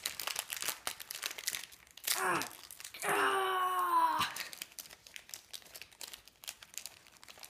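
Foil snack packet crinkling and tearing as it is pulled open by hand. A child's short falling groan sounds about two seconds in, and a longer strained vocal groan around three to four seconds in.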